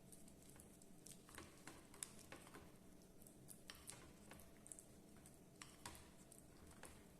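Faint, scattered light clicks and taps at an irregular pace, over a quiet room hum.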